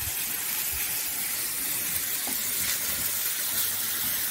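Diced bell peppers, peas and onion sizzling steadily in hot oil in a frying pan as they are stirred with a wooden spatula, with a couple of faint scrapes of the spatula against the pan.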